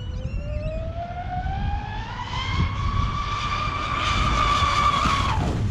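Electric RC speedboat's brushless motor, running on a 7S battery pack, whining as the boat accelerates across the water. The pitch rises steadily for about three seconds, holds at top speed, then drops away sharply near the end. Wind rumble runs underneath, and a few bird chirps come right at the start.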